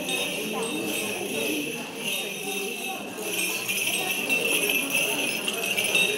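Small bells on a swinging Orthodox censer jingling steadily, louder from about halfway, with low voices murmuring beneath.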